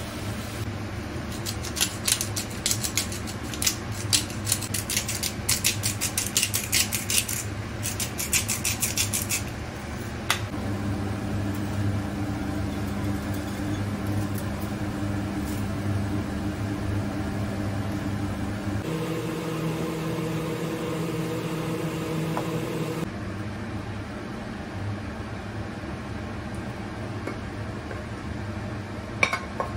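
Sliced mushrooms crackling and sizzling in a hot frying pan for about the first ten seconds. Then a steady mechanical hum with a low drone, changing pitch a couple of times, and a single sharp clink near the end.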